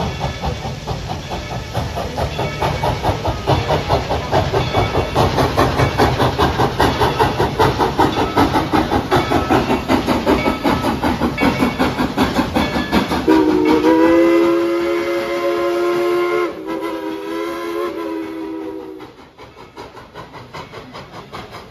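Dollywood Express steam locomotive working hard, its exhaust chuffing in a fast, even beat. About 13 seconds in, its chime whistle sounds a long blast and then a second, shorter one, after which the sound drops away much quieter.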